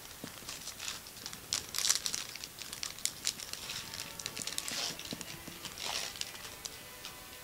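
Thin plastic wrapper of a trading card being crinkled and torn open by hand, in irregular crackles that come in a couple of busier bursts.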